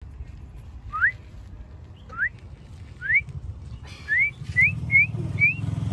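A person whistling to call a stray dog over: seven short rising whistles, about a second apart at first and quicker toward the end.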